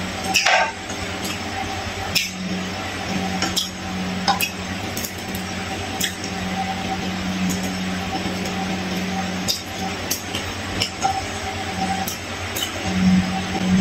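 Eating sounds: fingers pulling apart fried fish on a tray and the eater chewing, with scattered light clicks and smacks every second or two.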